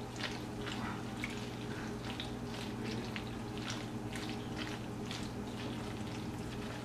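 Spoon mixing hot elbow macaroni with beaten egg and melting cheese in a pot: irregular wet squishing and clicking strokes, two or three a second.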